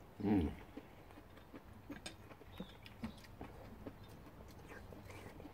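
Quiet table eating sounds from noodle soup: scattered light clicks and taps of chopsticks against bowls, chewing and slurping of noodles. A short hummed 'mm' from one of the eaters comes about a quarter second in.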